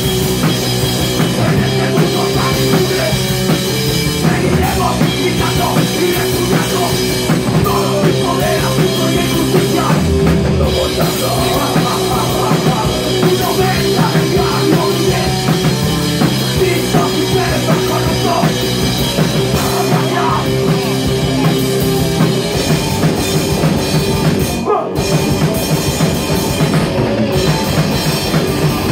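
Punk rock band playing live and loud: distorted electric guitars, bass, fast pounding drum kit and vocals into the microphone. The band cuts out for a split second about three-quarters of the way through, then crashes back in.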